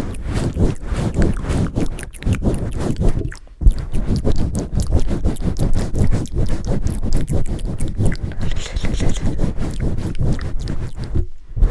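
Rapid rubbing, scraping and thudding right against the microphone, heavy in low thumps: ASMR microphone pumping and swirling. It breaks off briefly about three and a half seconds in and again near the end.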